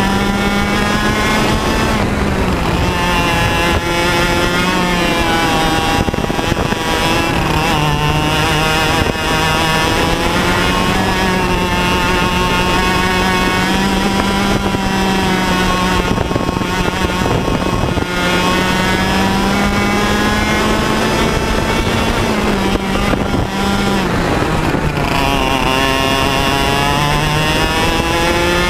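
A TAG100 kart's 100cc two-stroke engine, heard from on board the kart at racing speed. Its pitch climbs along the straights and drops each time the kart slows for a corner, rising and falling several times.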